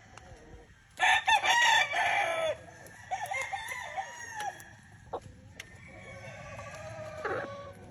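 Roosters crowing: a loud crow starts about a second in, a second crow follows right after it, and fainter crows come from other birds later on.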